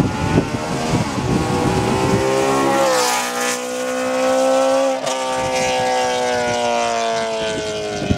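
BMW E92 M3 V8 at full acceleration through a Fi valvetronic exhaust with the valve open, its note climbing steeply in pitch, breaking briefly about five seconds in, then slowly falling in pitch. Gusts of wind noise on the microphone come before the engine note rises.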